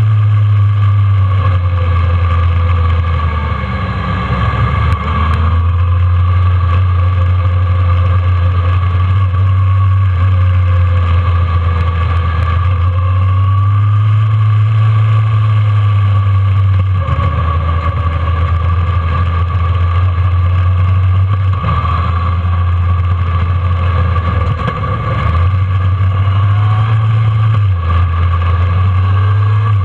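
Kawasaki ZRX1200's inline-four engine running at low revs, heard from on board the motorcycle while riding. The engine note shifts up and down several times as the throttle opens and closes.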